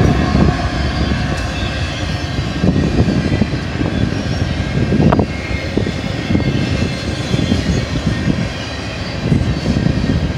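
BNSF double-stack container train's well cars rolling past: a steady rumble of steel wheels on rail with irregular clatter and one sharper clank about halfway through.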